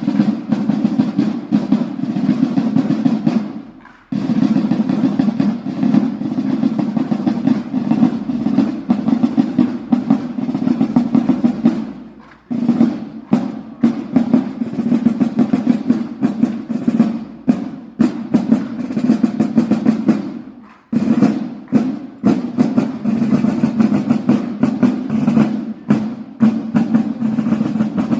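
Snare drumming: rapid rolls and strokes played in phrases of about eight seconds, each ending in a brief break.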